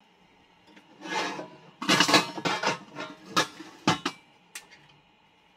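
Hanging frying pans clanking against each other and their hooks as one is handled and lifted down: a string of irregular metal knocks, the two sharpest near the end.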